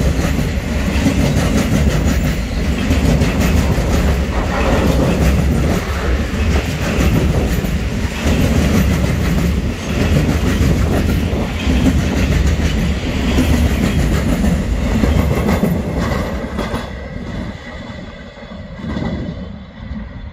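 Freight train of silo wagons rolling past close by, wheels clattering steadily over the rails. About three quarters of the way through, the sound drops off and thins out as the last wagon passes and moves away.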